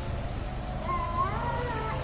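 An animal's drawn-out cry, about a second long starting just before the middle, pitched high and sliding up then down, over a low steady rumble.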